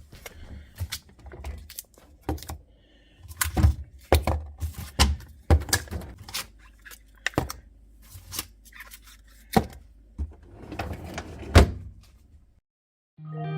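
Plastic fridge bins and containers being shifted around and set down on refrigerator shelves: a string of irregular clunks and knocks with handling noise between them.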